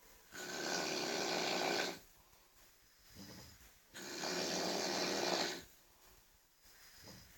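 A person snoring very loudly: two long snores, each about a second and a half, roughly four seconds apart, with quiet between them.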